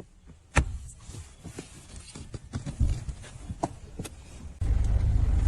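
Plastic interior trim panel clips snapping and knocking as the rear air-vent panel is pressed into place: one sharp snap about half a second in, then lighter clicks and taps. A loud, steady low rumble starts near the end.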